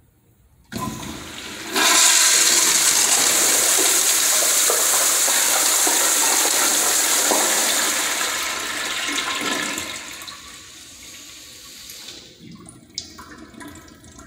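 Toilet flushing: a sudden loud rush of water starts about a second in and runs strongly for about eight seconds, then dies down to a quieter trickle as the bowl refills.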